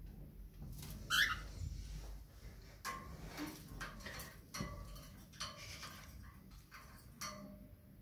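A cockatiel gives one short chirp about a second in. A run of light clicks and taps against the metal wire birdcage follows, as the bird's beak and feet work the cage top.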